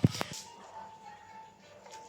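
Two sharp knocks right at the start, from engine parts being handled during a motorcycle engine teardown, then faint background music with a steady tone.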